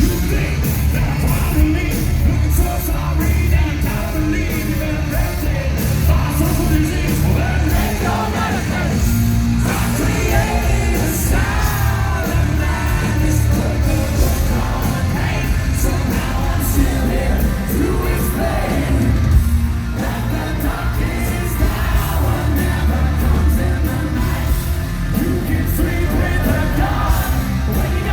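Live rock band playing loudly: a heavy, driving mix of bass, guitars and drums with a lead singer, including shouted vocals.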